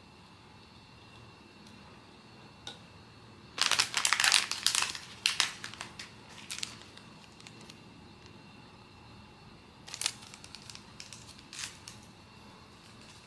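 Blind-box packaging being handled: a burst of crinkling, crackling plastic wrapping about three and a half seconds in that lasts two or three seconds, then a few light clicks and rustles around ten to twelve seconds in.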